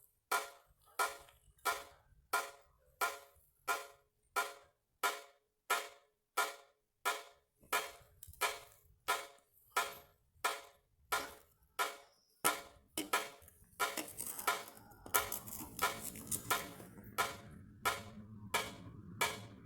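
Steady, evenly paced knocking from inside an underground drain, about three knocks every two seconds, each with a short ringing tail; the uploader takes it to be something mechanical. About two-thirds of the way through, a steady rushing noise joins the knocking.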